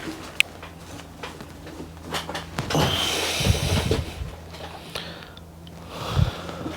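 Handling noises: scattered small clicks and knocks, with a rustle of things being moved about three seconds in, over a faint steady low hum.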